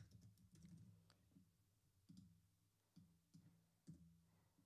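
Faint, scattered clicks of a computer keyboard and mouse, about eight taps spread unevenly across a few seconds, as a word is typed into a search box and an item is clicked.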